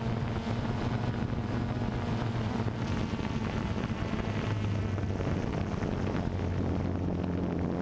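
Multirotor drone's motors and propellers humming steadily, the hum shifting in pitch a couple of times, with wind rushing over the microphone.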